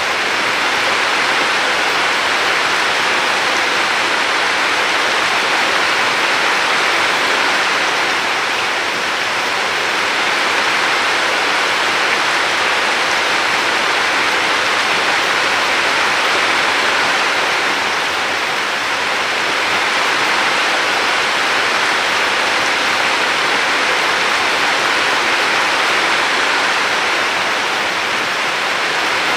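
River water flowing in a steady rush that swells and eases gently every several seconds.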